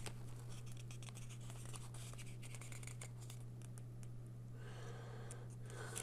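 Pages of a small paper instruction booklet being leafed through: faint paper rustles and small ticks, over a steady low hum.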